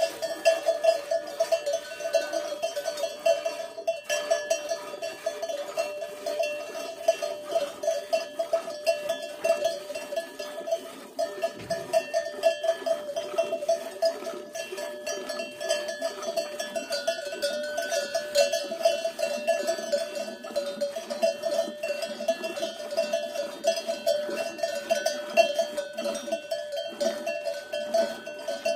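A cow milked by hand into a metal milk can: rapid, rhythmic squirts of milk strike the can, and each stream sets off a metallic ring.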